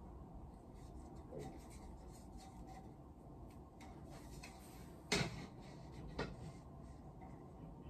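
Faint rustling and scraping of decorations being handled, with two sharp knocks about five and six seconds in, the first the louder.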